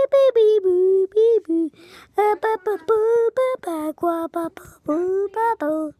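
A young child singing a wordless tune, a string of short held notes rising and falling in pitch.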